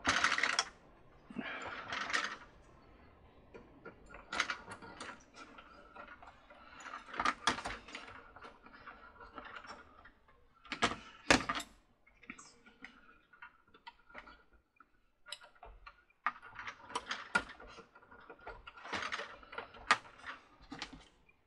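Irregular clicks and rustles of small plastic parts and wires being handled as wires are pulled out through the carousel motor's rotor, with a pair of sharp clicks about eleven seconds in.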